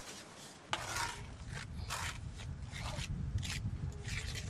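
Mason's trowel scraping lime mortar against stone in a run of short, quick strokes, roughly two or three a second.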